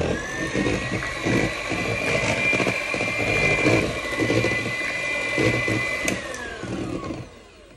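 Zelmer electric hand mixer running, its beaters whipping pancake batter in a bowl, with a steady motor whine. It is switched off about six seconds in and its whine falls away as the motor winds down.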